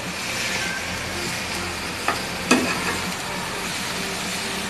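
Steel spoon stirring a chicken, potato and vegetable filling in a frying pan over the flame, the mixture sizzling with a steady hiss. The spoon clicks twice against the pan about two seconds in.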